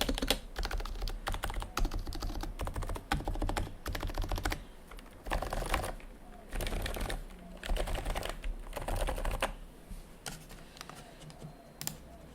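Topre-style rubber-dome keyboard (HHKB Pro 2 domes in Realforce housings, MX-stem sliders, copper plate) with GMK Olivia keycaps being typed on: quick, dense keystrokes for the first few seconds, then shorter runs of typing with brief pauses between them.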